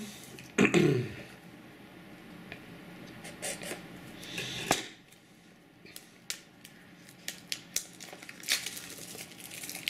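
Clear cellophane shrink-wrap being picked at and peeled off a cardboard phone box by hand: scattered crinkling, rustling and small clicks. A brief louder sound falls in pitch just under a second in.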